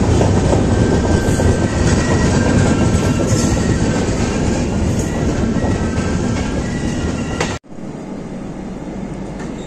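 A train running on the rails close by: a loud, steady rumble with wheel clatter. It cuts off suddenly about seven and a half seconds in, leaving a quieter steady hum.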